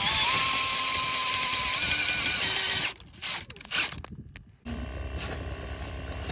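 DeWalt brushless cordless drill driving a screw-in ice anchor into the ice. The motor whine rises in pitch, holds steady, and stops about three seconds in, followed by two short bursts on the trigger. A steady low hum comes in near the end.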